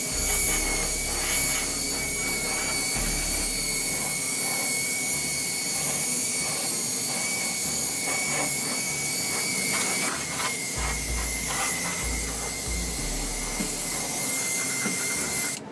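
Airbrush spraying paint inside a ventilated spray booth: a steady rush of air with a thin high whine, cutting off abruptly at the very end.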